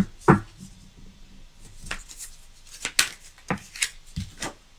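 A deck of oracle cards being shuffled by hand: a string of short, irregular card clicks and snaps.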